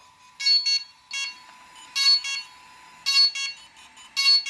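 DJI Inspire 1 drone beeping in repeated high-pitched double beeps, about one pair a second, while its firmware installs: the normal signal of an upgrade in progress.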